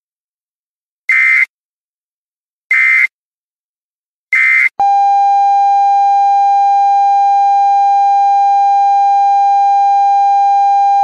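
Emergency Alert System signal: three short bursts of buzzy digital header data, about a second and a half apart. About five seconds in, the steady, loud EAS attention tone starts and holds.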